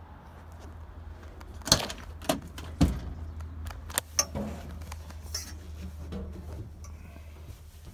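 Several sharp knocks and clatters in quick succession, from climbing up the step and into a truck cab, over a steady low hum.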